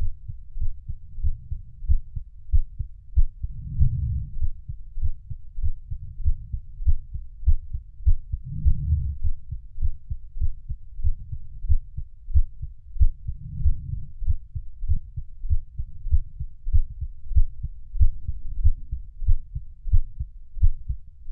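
Heartbeat sounds: a regular train of deep, low thumps, with a louder swell about every five seconds.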